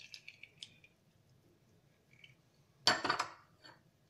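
Light metallic clicks from a hand-held metal lemon squeezer. About three seconds in, a short clatter and clink as the metal squeezer is set down in a small glass bowl.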